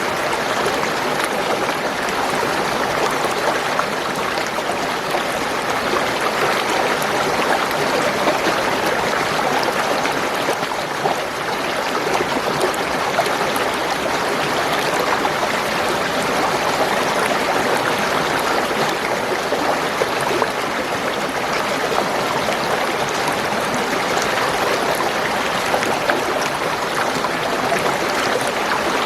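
Spring water gurgling in a steady, continuous flow.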